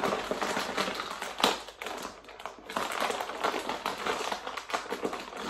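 Plastic crisp packet crinkling and crackling with sharp snaps as hands pull and twist at it, struggling to tear it open.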